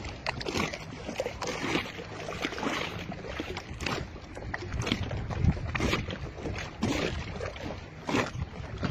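Wind rumbling on the microphone, with small waves lapping and slapping irregularly.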